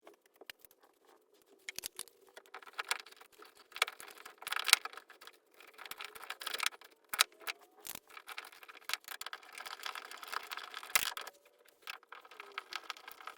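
Irregular light clicks, taps and knocks of hand work on a fire alarm pull station's back box as it is screwed back onto the wall.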